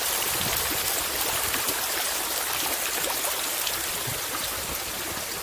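Running, splashing water from a garden water feature, a steady hiss that grows gradually fainter.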